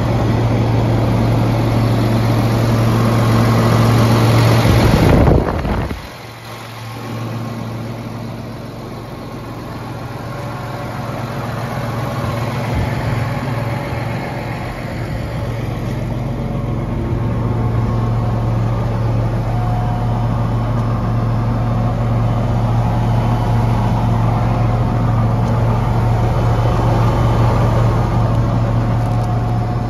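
The John Deere 8320R tractor's 9.0-litre six-cylinder diesel engine idling with a steady low hum. A loud rushing noise builds to about five seconds in and then cuts off sharply.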